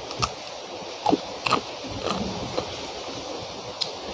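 Chewing and mouth sounds of a person eating rice and fish by hand, with several short sharp clicks, over a steady hiss of heavy rain.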